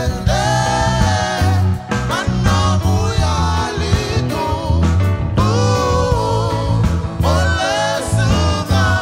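Live band music with a man singing a melody into a microphone, backed by a Roland RD-700 stage piano, bass guitar and drum kit.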